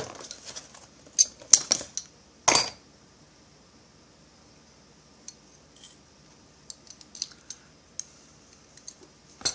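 Pliers and a small steel E-clip clicking and clinking against a chainsaw's brake linkage as the clip is worked into place: a quick run of sharp metallic clicks, the loudest about two and a half seconds in, then scattered faint ticks.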